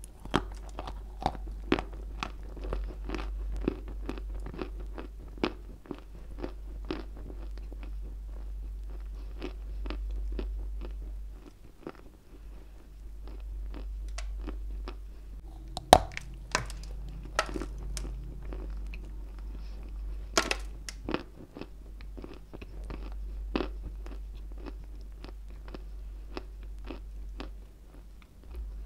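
A lump of White Turkestan chalk bitten into and chewed close to the microphone: many sharp, dry crunches in quick succession, with a few louder crunches about halfway through, over a steady low hum.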